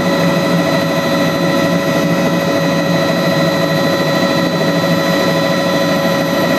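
Bell 206 JetRanger helicopter heard from inside the cabin: the Allison 250 turboshaft's steady, high whine over the rapid beat of the main rotor, holding constant.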